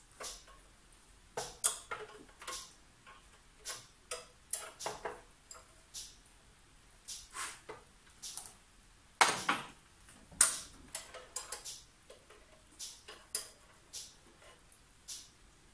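Spanners clicking and clinking on metal on a VW TDI diesel engine as its injector pipe unions are cracked loose to bleed fuel through. The clicks and knocks are irregular, with the loudest knocks a little past halfway.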